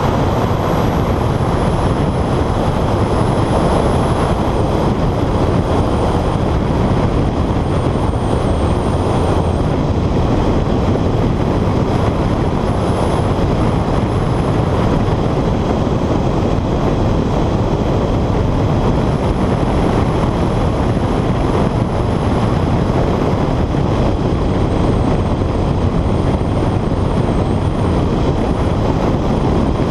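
Honda CR-X at speed on a fast lap: wind rushing over the camera mounted outside the car, mixed with engine and tyre noise, steady and loud. A faint high whine drifts slowly up and down.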